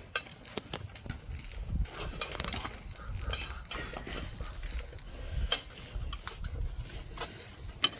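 Scattered metallic clinks and knocks from hands working an e-bike wheel assembly back into the frame, with the sharpest knock about five and a half seconds in and another near the end.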